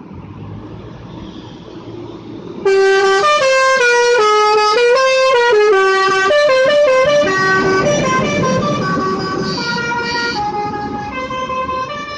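Basuri musical air horn on a Gunung Harta coach playing a tune of quick stepped notes, cutting in suddenly about three seconds in and running on to the end, with the coach's engine noise swelling underneath it midway as it passes close.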